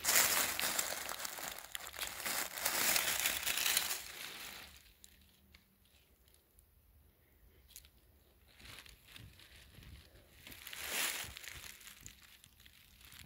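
Dry fallen beech leaves rustling and crunching as a hand works through the leaf litter to pick a porcino. The rustling is loudest in the first four seconds; after a quieter spell there is another short rustle about two seconds before the end.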